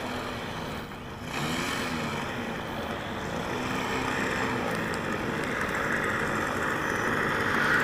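OS 91FX two-stroke glow engine of an RC airplane idling, its note wavering slightly, with a brief dip about a second in and growing gradually louder toward the end.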